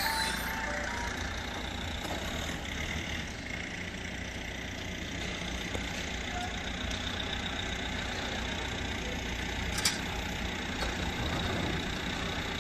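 Vehicle engine idling with a steady low rumble, and a single sharp click about ten seconds in.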